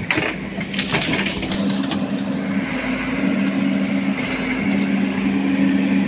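JCB 3DX backhoe loader's diesel engine running steadily at working revs as the machine works at pulling out a clump of bamboo, with a couple of brief knocks about a second in.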